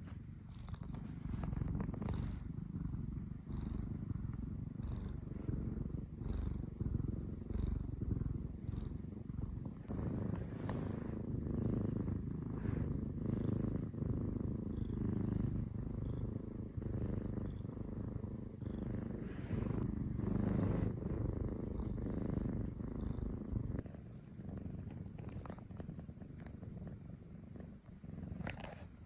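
A sleeping male cat snoring, a continuous low rumble that swells and eases.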